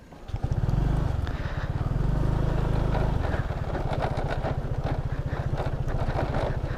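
Motor scooter engine running under throttle on a rough dirt track. Its low, rapid firing pulse comes in a moment after the start and holds steady, with the note changing about three seconds in.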